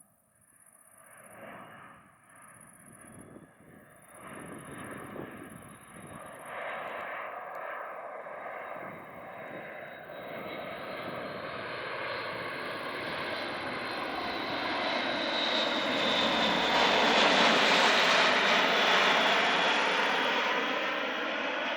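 Airbus A400M Atlas four-engine turboprop flying toward and past the listener, growing from faint to loud over about fifteen seconds, loudest a few seconds before the end, then easing slightly.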